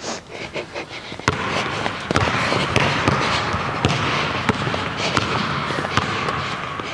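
Basketball dribbled on a hardwood gym floor: sharp repeated bounces, several close together in the first second, then about one or two a second as the dribbler drives.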